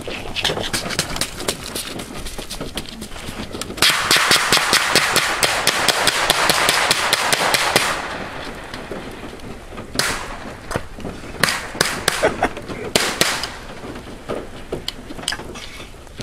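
Gunfire on a shooting course: strings of rapid shots, densest and loudest from about four to eight seconds in, then a few spaced single shots.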